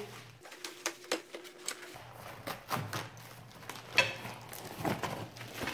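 Long cardboard box being opened and handled, its flaps and wrapping rustling and scraping as wrapped metal support legs are slid out. There are irregular small clicks throughout, with a sharper knock about four seconds in.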